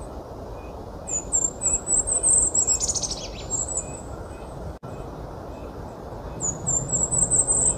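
Golden-crowned kinglet singing: an accelerating series of very high, thin notes that tumbles into a lower, chickadee-like chatter about 3 seconds in. A second song begins near the end.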